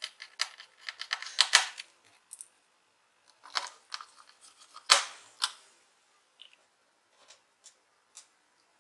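Screwdriver fastening the small screws that hold the drive in a laptop's drive bay: a run of light metallic clicks and scrapes, busiest in the first two seconds and again around four to five and a half seconds in, with a few faint ticks later.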